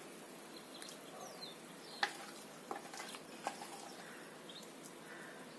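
Faint clinks and scrapes of a spoon on a steel bowl, with a few sharp clinks between about two and three and a half seconds in, over a steady low hiss.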